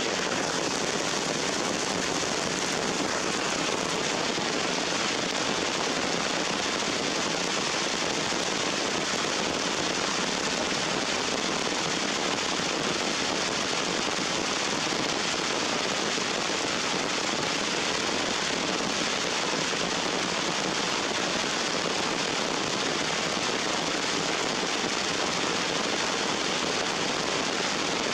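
Steady rain falling on leaves and wet rock, a dense even hiss with no let-up.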